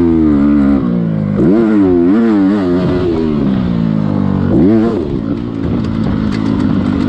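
Motocross dirt bike engine heard close up from on the bike as it is ridden round the track, revving up and falling back again and again. The pitch climbs sharply three times: right at the start, about a second and a half in, and about four and a half seconds in.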